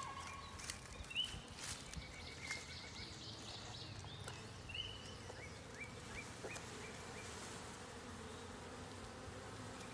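Honeybees buzzing steadily around an opened package of bees, with a few light clicks from a hive tool prying the queen cage loose.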